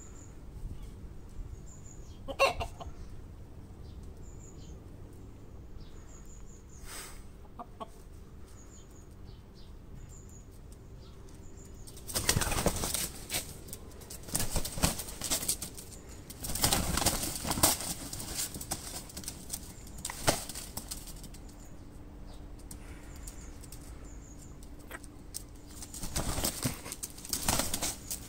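A rooster and a peacock fighting, their wings beating in loud flurries. The flurries come in several bursts from about 12 seconds in, with a last one near the end, after a quieter stretch with a single sharp knock about two and a half seconds in.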